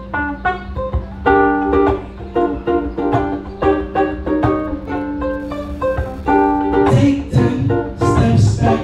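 Ukulele playing a run of plucked chords over a steady low hum. From about seven seconds in, low thumps and a hissy rhythm join it.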